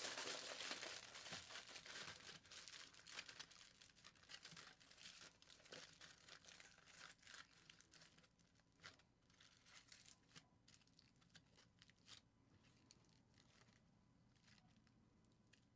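Faint crinkling of aluminium foil being crumpled by hand and pressed onto a foil sculpture. It is dense at first and thins to scattered crackles.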